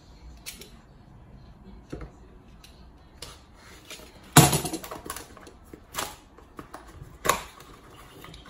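Hands opening a cardboard product box and handling the packing foam inside: scattered taps, clicks and rustles, with a louder rustle about four and a half seconds in.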